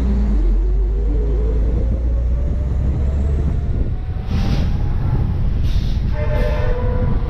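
Heavy truck driving, heard from its cab roof: a steady low engine rumble with a faint whine rising in pitch over the first few seconds. In the second half come three short hissing bursts, and near the end a brief pitched tone.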